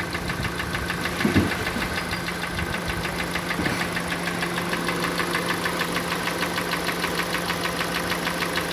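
Kia Sportage's 2.0-litre G4NA four-cylinder petrol engine idling with a fast, even knocking. The mechanic expects scored cylinder walls, the usual fault on this engine.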